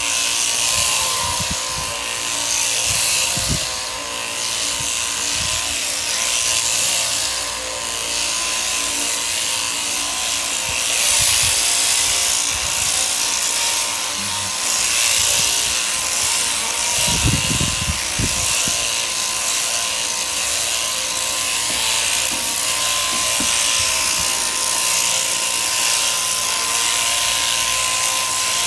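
Mechanical sheep-shearing handpiece running steadily, its cutter buzzing across the comb as it clips through a sheep's thick fleece, with a steady tone underneath. A few low thumps a little past halfway.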